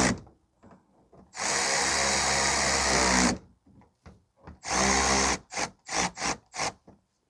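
Power drill driving screws: a long run of the motor, then a shorter one, then about five quick trigger pulses as the screw is snugged down.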